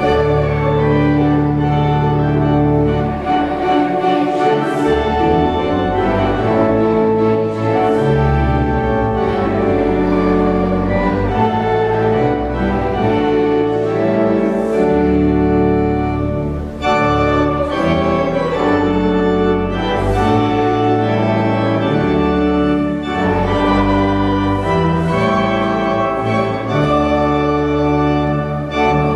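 Church organ playing held chords that change every second or two.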